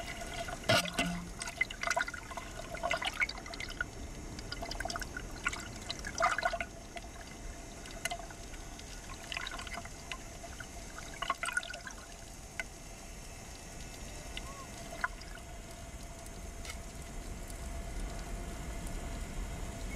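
Water splashing and bubbling heard from underwater, as a speared fish is pulled up through the churning surface on a line. It comes in irregular bursts over the first dozen seconds and then thins out, over a faint steady hum.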